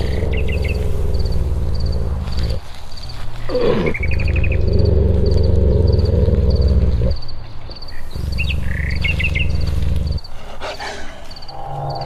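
A deep animal roar or growl, drawn out in three long stretches, over birds chirping with a regular high chirp about twice a second.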